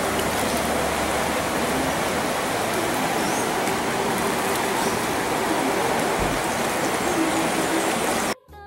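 Rushing water of a fast-flowing, rain-swollen muddy river, a steady loud rush that cuts off suddenly near the end, where faint music begins.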